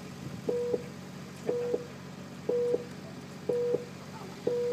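Electronic start-countdown beeper sounding short, low beeps at exactly one per second, five in all, as the race is about to start, over a steady low hum.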